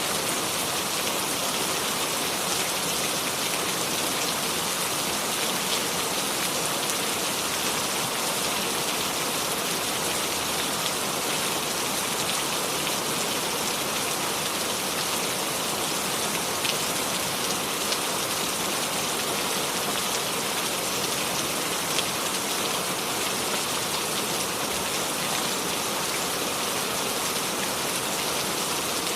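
Steady, even rainfall with fine, dense patter of drops and no thunder.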